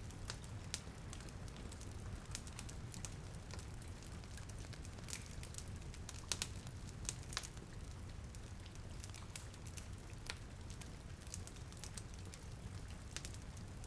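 Rain and a crackling fireplace: a steady hiss of rain over a low rumble, with irregular sharp pops and crackles of burning wood, a few louder pops about halfway through.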